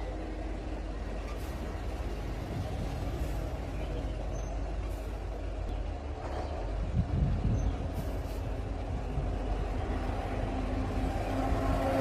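Dump truck's diesel engine running steadily, with a louder burst of sound about seven seconds in.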